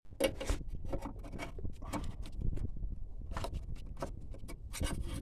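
Hands handling the truck's plastic air-intake parts: scattered clicks, knocks and rattles over a low rumble.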